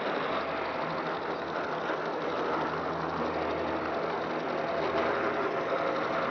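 Steady rolling rumble and clatter of a G-scale model train's wheels on the track, with the hum of the gear drive, heard from a car riding in the train.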